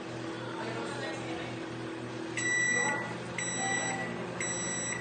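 Samsung microwave oven running with a steady hum, which stops a little over two seconds in. Its end-of-cycle alert then beeps three times, once a second, each beep a high tone about half a second long, signalling that the cooking time is done.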